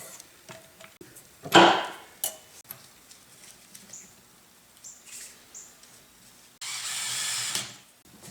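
Metal parts of a planer's segmented feed roll being handled during hand assembly: one loud clank about a second and a half in, then a sharper click and scattered light ticks. Near the end comes a hiss lasting just over a second.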